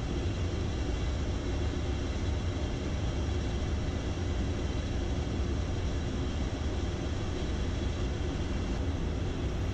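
Steady cockpit noise of an Embraer Phenom 300E jet on final approach with gear down and full flap: a low rumble of airflow and engines with a faint steady high whine over it.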